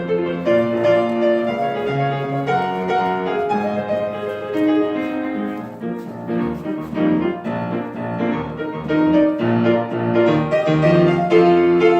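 Piano playing an instrumental interlude of held chords in a gospel praise song, with no singing.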